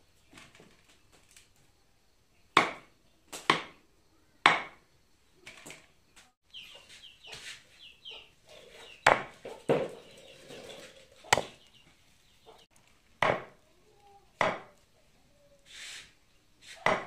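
Large knife chopping raw meat on a round wooden chopping block: about nine sharp chops at irregular gaps of one to two seconds.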